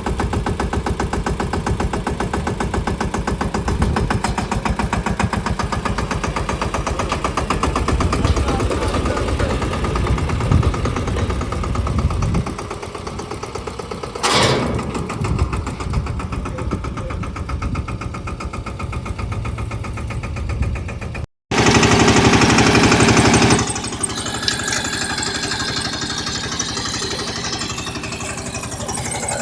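Eicher 188 tractor's single-cylinder air-cooled diesel engine running with a fast, even pulsing beat. The sound breaks off for an instant about two-thirds of the way through, then comes back louder for a couple of seconds.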